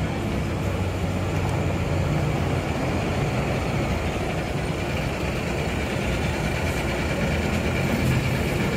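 Large bus's diesel engine running steadily at idle, a continuous low engine drone.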